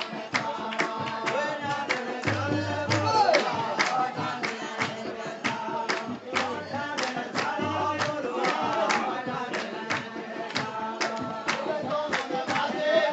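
Himachali nati folk dance music: a fast, steady drumbeat of about three to four strokes a second under a sung melody.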